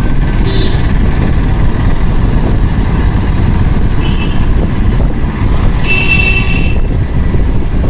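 Motorcycle ride: the engine running under steady wind and road rumble on the microphone. A brief high-pitched tone sounds about six seconds in.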